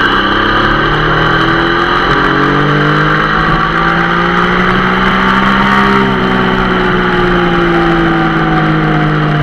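Triumph Sprint GT 1050's three-cylinder engine pulling along at steady cruising speed, its note rising gently and then easing back down, with a steady rush of wind and road noise.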